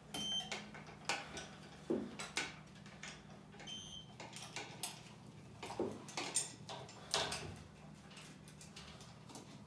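Two short high electronic beeps from a handheld digital scale, one at the start and one a few seconds in, among scattered clicks and clinks of steel chain and the metal loading handle being handled.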